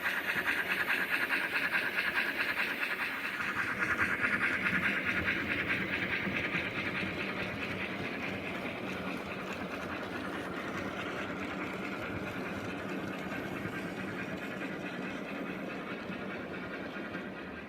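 OO gauge model locomotive running along the track, its motor and wheels giving a steady mechanical run that grows quieter from about five seconds in.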